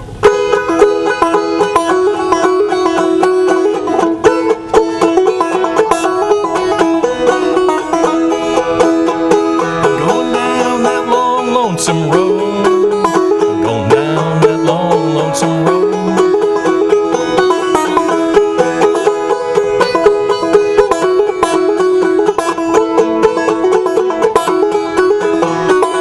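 Five-string banjo playing an old-time tune in clawhammer (frailing) style: a quick run of plucked notes over the ringing drone of the open strings. A low voice briefly hums or sings along in the middle.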